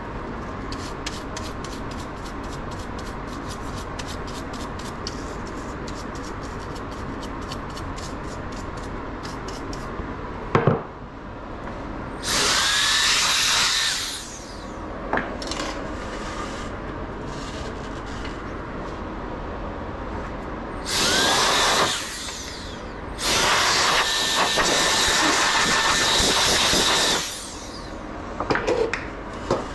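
Handheld electric air blower run in three blasts of about two, one and four seconds, each spinning up with a short rising whine into a loud rush of air. Between the blasts come faint rapid ticking and a few sharp knocks.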